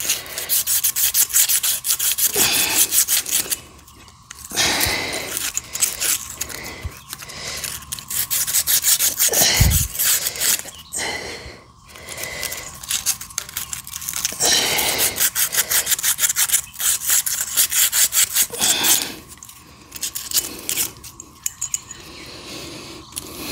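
Sandpaper, 120 grit, rubbed rapidly back and forth around the rusty metal shaft of a tractor rock shaft valve, in spells of quick scraping strokes with short pauses. The sanding is meant to clean off rust so that the stuck shaft turns freely. There is one brief low knock about ten seconds in.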